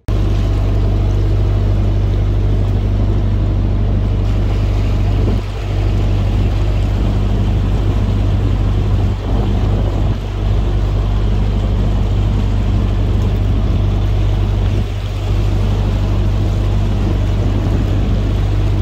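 Canal boat's diesel engine running steadily while under way: a deep, even hum that dips briefly a few times.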